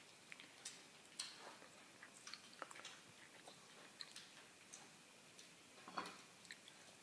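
Near silence, with faint irregular small clicks and one short hiccup about six seconds in.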